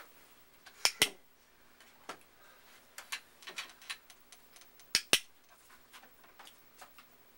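A training clicker clicked twice, each time as a quick double click of press and release, about a second in and again about five seconds in, with a few fainter ticks between. Each click marks the puppy's sit, followed by a food reward.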